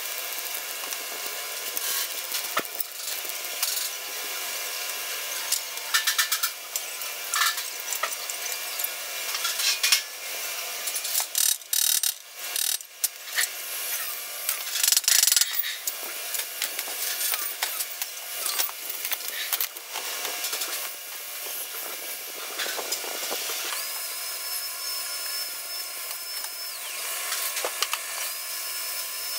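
Workshop noise of sheet-metal welding and fabrication: a dense, uneven run of crackling, clicking and scraping. A steady high whine comes on twice near the end.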